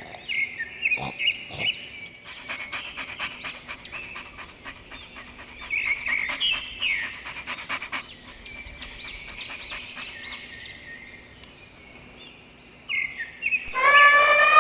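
Birds chirping and twittering in quick repeated calls. Near the end a loud, drawn-out horn-like call begins.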